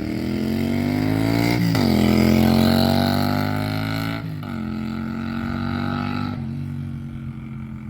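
Motorcycle engine accelerating: its pitch climbs for about two seconds, then drops sharply at a gear change. It runs fairly steadily after that, with another drop about halfway through and a smaller change near the end.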